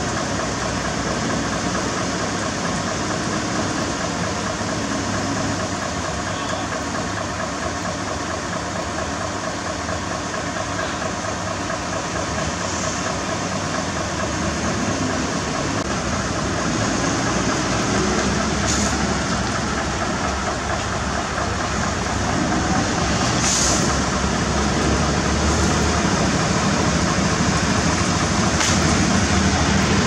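Heavy diesel engine running steadily, with a few short hisses in the second half.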